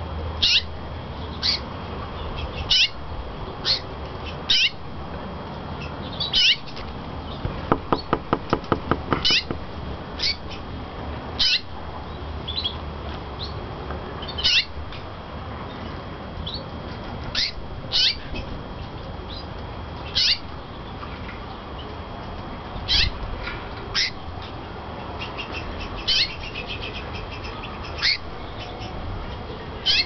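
Japan Hoso canary calling with short, high chirps about every second or two, each falling in pitch. About eight seconds in it gives a quick run of around ten rapid notes, and near the end a brief trill.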